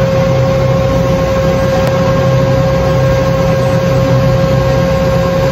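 Steady jet-aircraft cockpit noise: a constant low engine hum with an unchanging high whine above it.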